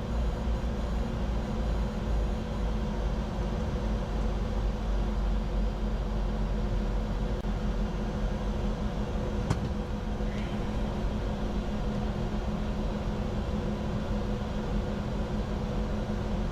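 Steady flight noise in the cockpit of a Bombardier Challenger 605 business jet: rushing air with a low, even hum, and a single sharp click about halfway through.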